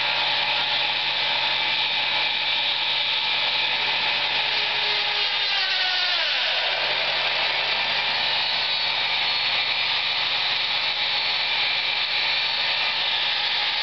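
A combination woodworking machine running with a steady motor whirr and hiss. About six seconds in a whining tone glides downward, and a little later a higher steady whine joins in.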